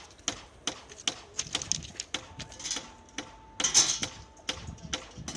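Steel hand tools striking the rail and ballast stones: an irregular run of sharp metallic clinks and knocks, a few a second, with a louder rasping clatter about two-thirds of the way in.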